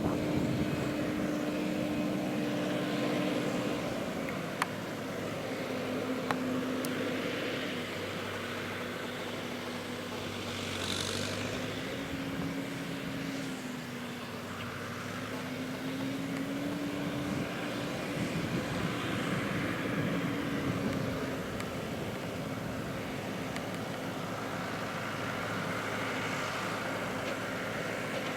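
Massey Ferguson tractor's diesel engine running at steady revs, its pitch dipping and rising slightly, with a couple of sharp clicks about five and six seconds in.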